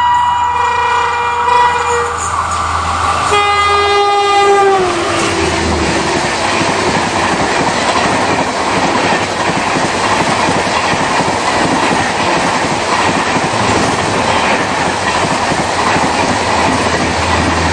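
Express train passing at about 120 km/h. The locomotive horn sounds twice as it approaches, and the second blast drops in pitch as the locomotive goes by. Then comes a long, steady rush of noise as the coaches speed past.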